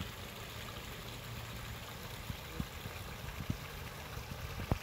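Steady rush of flowing river water, with a few brief low thumps near the middle and end.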